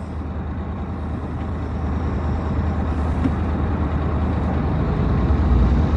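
Low, steady rumble of a car heard from inside its cabin, slowly growing louder.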